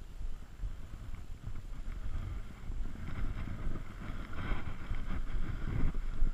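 Wind buffeting a body-mounted action camera's microphone in uneven gusts, with brushing and rubbing from the wearer's gear and rifle sling.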